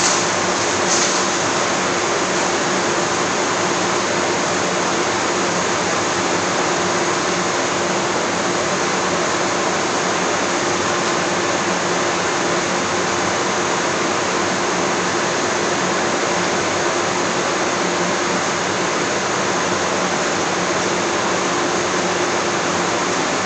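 Cremation retort running: a steady rushing noise from its burners and blowers, with a low steady hum under it. Two light knocks in the first second.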